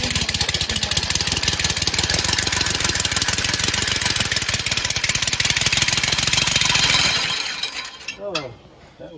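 Home-built three-cylinder compressed-air engine running under load, a rapid chuffing of exhausting air with a strong hiss. It winds down and stops about eight seconds in. The builder judges it still short of RPM.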